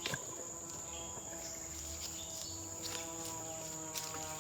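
Forest insects keeping up a steady high-pitched drone, with faint music of held notes underneath and a couple of soft clicks.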